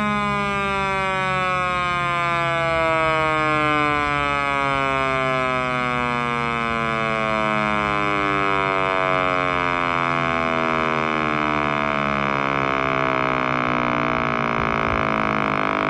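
Synthesized Federal Sign & Signal Thunderbolt 1000 siren winding down, its tone falling steadily in pitch, over a steady low hum. It is played back through laptop speakers.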